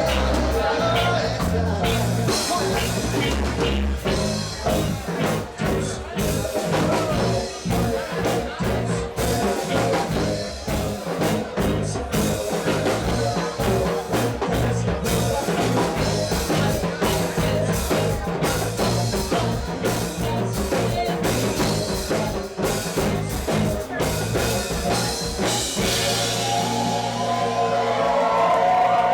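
Live reggae band playing with a steady beat.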